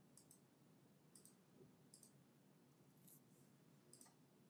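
Near silence: faint room tone with about five soft, high clicks spaced roughly a second apart.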